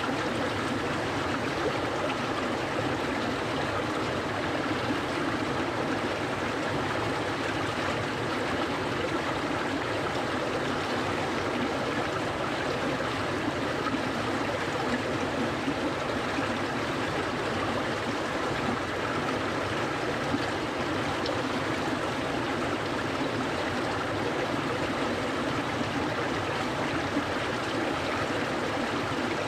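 Clear mountain stream flowing over rocks: a steady, even rush and burble of running water with no change in level.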